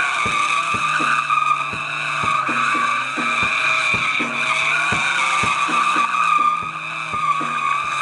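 Sport motorcycle's rear tyre squealing steadily as it spins through a smoky burnout donut, over background music with a steady beat about twice a second.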